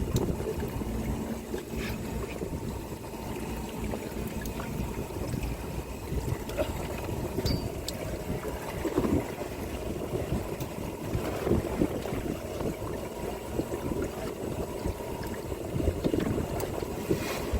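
Water sloshing and lapping against the hull of a fishing boat in irregular swells, over a steady low rumble.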